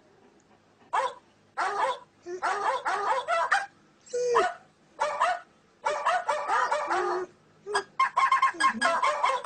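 A dog barking in quick runs of short barks, starting about a second in.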